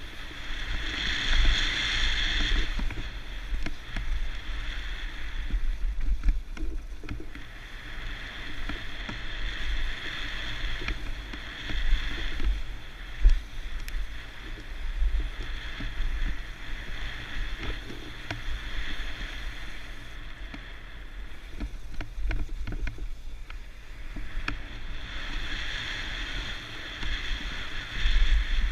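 Mountain bike running down a bike-park trail: wind rumbling on the camera microphone, a hiss from the tyres on dirt and gravel that swells and fades, and the odd clack as the bike hits bumps.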